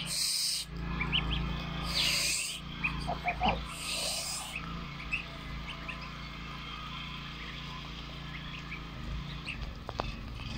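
Goslings peeping with many short, high chirps as they feed, with three brief hissy bursts in the first half.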